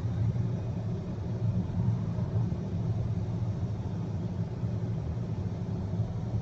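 Steady low rumble of road and drivetrain noise inside the cabin of a Volvo XC90 B5 diesel mild hybrid cruising at about 58 km/h.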